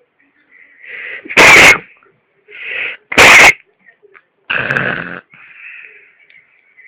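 Two loud sneezes about two seconds apart, each after a short in-breath, the blasts loud enough to distort, followed a little over a second later by a third, shorter and softer noisy burst.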